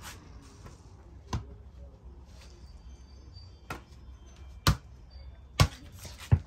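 A ball being struck and caught in a game of toss: several separate sharp thuds a second or more apart, the loudest two near the end, over a low rumble of wind on the microphone.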